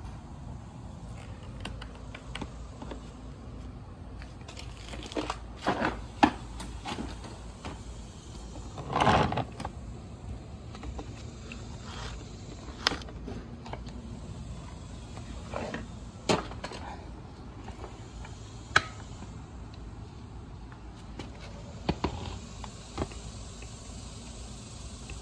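Plastic parts of a vacuum cleaner, its hose inlet, cyclone housing and clear dust bin, being handled while it is checked for a clog: scattered sharp clicks and knocks, with a longer scraping rustle about nine seconds in, over a steady low background noise.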